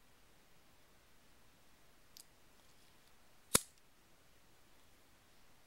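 A mostly quiet room with one sharp, short click about three and a half seconds in, and a much fainter tick a little over a second before it.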